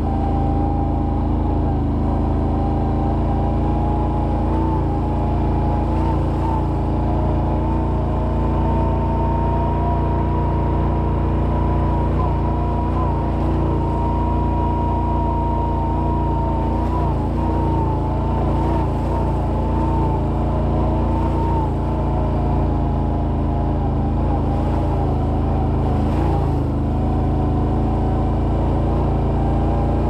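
Can-Am Outlander 800 XT ATV's V-twin engine running at a steady cruise through an HMF Swamp XL slip-on exhaust, its pitch rising a little and settling back.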